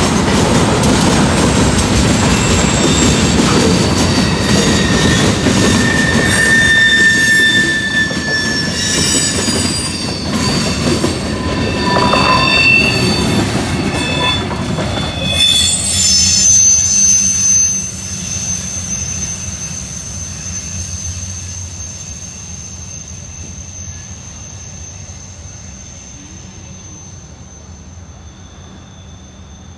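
Freight train of tank cars, boxcars and covered hoppers rolling past at close range, its wheels letting out short high squeals over the rumble. The last car clears about 17 seconds in and the rumble fades away, leaving a thin steady high tone.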